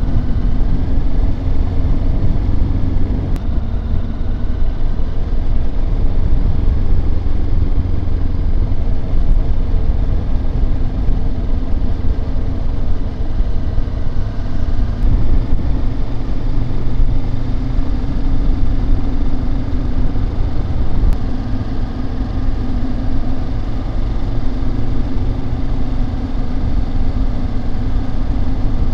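Motorcycle engine running steadily while ridden slowly, heard from the bike's onboard microphone with a heavy low rumble of wind and road noise.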